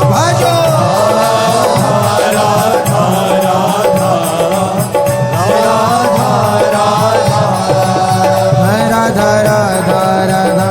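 Indian devotional song: a voice sings a gliding melody over a steady drone and a repeating low rhythm.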